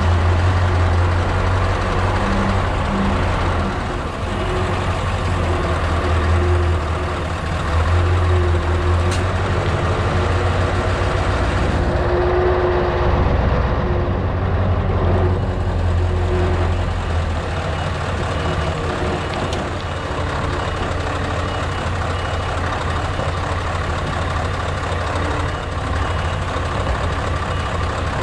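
Scania S650's 16.4-litre V8 diesel running at low revs as the truck manoeuvres slowly, a steady low hum. A reversing alarm beeps repeatedly through the second half.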